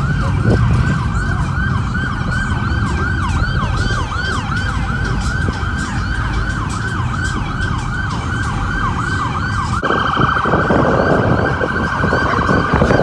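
Electronic police siren in a rapid yelp, sweeping up and down about three times a second. About ten seconds in it switches to a steadier tone over a louder rough rush of noise.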